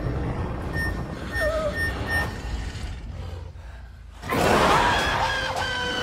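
Electronic beeps, short and all at one pitch, coming closer and closer together over the first two seconds. After a brief lull, a sudden loud hit comes about four seconds in, with sustained tones ringing on after it.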